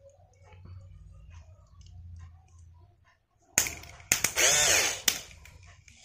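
Air-pressure horn's compressor motor switched on in short bursts about three and a half seconds in: sharp crackling clicks as the wires make contact, with the motor whirring up and back down between them. Its armature is running with no grease in it.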